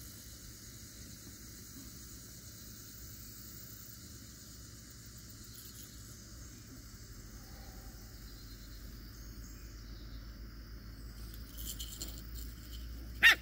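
Steady insect noise in the background, thin high tones that hold throughout. About thirteen seconds in, a single short, loud, high-pitched yip from one of the corgi puppies.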